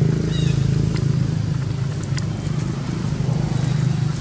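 A steady low engine hum, as from a motor vehicle running nearby, throughout. A brief high squeak comes about a third of a second in, and a few faint clicks follow later.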